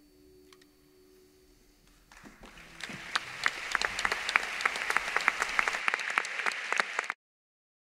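A held final note from the band dies away. About two seconds in, an audience starts applauding, building to steady clapping that cuts off suddenly near the end.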